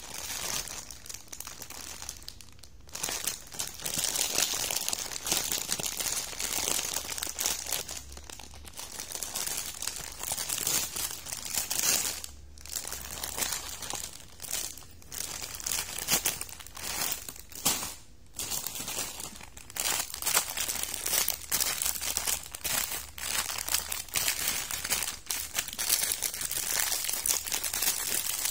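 Plastic packaging of a Maggi Mi Goreng instant-noodle packet and its seasoning sachets crinkling and rustling as they are handled and opened by hand. The crinkling goes on almost without a break, stopping briefly a few times.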